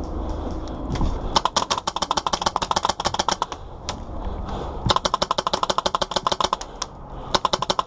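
Airsoft gun firing on full auto in three long bursts, a rapid clatter of about fifteen shots a second.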